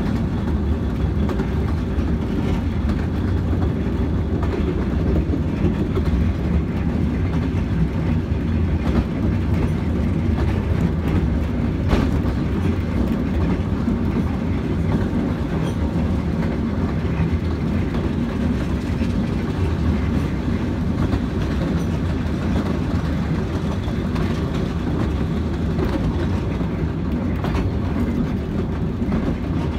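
A Ravenglass & Eskdale Railway carriage on the 15-inch-gauge line, heard from inside as it runs along the track. The wheels on the rails give a steady low rumble, with a few sharp clicks now and then.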